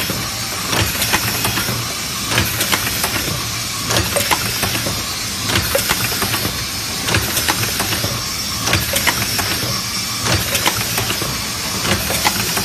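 Automatic tube filling and sealing machine running: a steady hum and hiss with clusters of mechanical clicks and knocks that repeat about every second and a half as it cycles.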